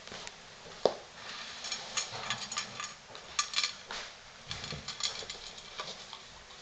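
Wire-haired miniature dachshund puppy eating dry kibble from a stainless steel bowl: a rapid run of crunches and clinks against the metal. One sharp clank stands out about a second in.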